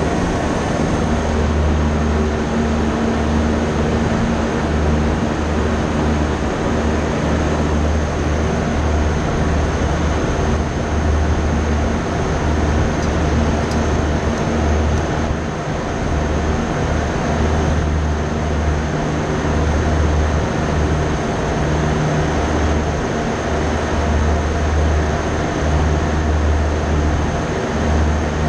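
Steady mechanical drone: a constant hum with several steady tones over an uneven low rumble, with no clear changes.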